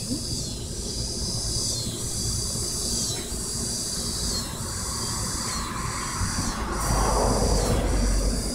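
Insects calling in a dense high-pitched chorus that swells and falls about once a second, over a steady low rumble. About seven seconds in, a louder rushing noise with a deeper rumble rises.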